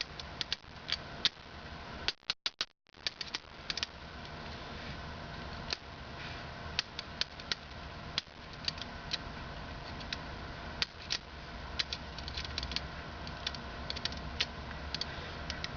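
Scattered light clicks and taps of small plastic parts as the LED optics are handled and tapped into their casings, over a steady low hum.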